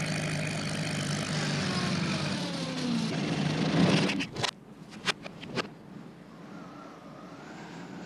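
Postman Pat's van engine sound effect played in reverse: a steady motor drone with a falling note that swells and then cuts off abruptly about four and a half seconds in. Three sharp clicks follow, then a faint hiss with a wavering whistle.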